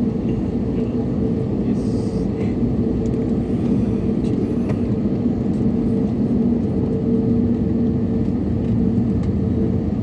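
Airliner jet engines running: a steady, loud drone with a low hum and rumble that holds level throughout.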